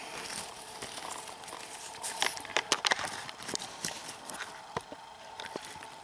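Dry pine needles and twigs crackling and snapping as someone moves and crouches in the forest litter: a scatter of sharp clicks, thickest about two to three seconds in.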